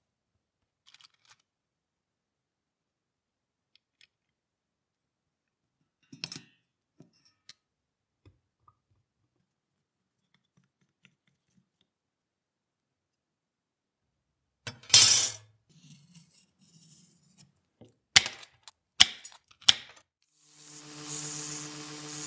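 Sparse clicks and metallic clinks of small parts being handled and fitted, with the loudest clatter about two-thirds of the way through. Near the end a belt sander starts and runs with a steady hum and hiss.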